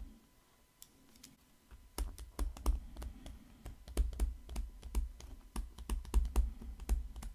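Pen stylus tapping and scratching on a tablet screen while handwriting. Fairly quiet at first, then from about two seconds in an irregular run of sharp taps, several a second, each with a dull knock.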